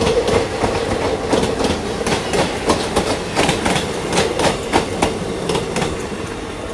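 Passenger coaches of an express train passing slowly on the adjacent track, the wheels clacking over rail joints and points in an uneven run of clicks, with a steady tone underneath. The sound starts to fade about six seconds in, as the last coach, the luggage and brake van, goes by.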